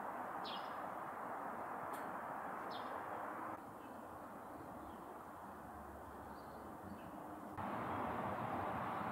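Steady outdoor background noise with two short, falling bird chirps in the first three seconds and a few fainter ones later. The background drops a little about three and a half seconds in and rises again near the end.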